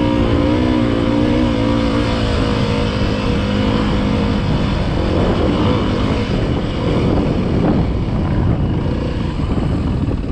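Dirt bike engine running under way up a rocky dirt trail, at a steady pitch for the first four seconds or so, then breaking up into a rougher, noisier sound.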